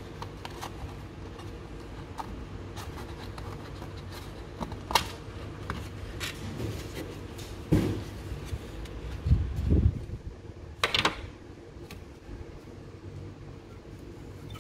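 Handling sounds from an old Snap-on KRA-229 sheet-metal socket-set box as its moulded tray insert is lifted out: scattered light clicks and taps, with a few louder knocks and a dull thump about two-thirds of the way through, over a steady low hum.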